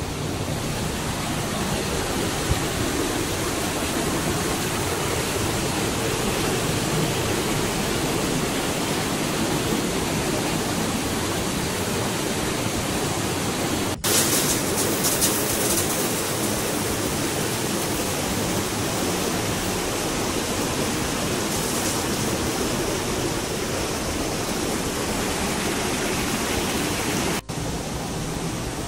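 Steady rushing hiss of steam pouring into a very hot steam room. It breaks off for an instant twice, about halfway through and near the end, and is briefly brighter and hissier just after the first break.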